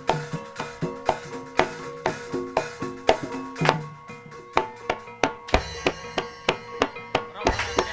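Banyumasan ebeg accompaniment music: a rapid, steady pattern of struck tuned percussion and hand-drum strokes, with two deep low strikes in the second half.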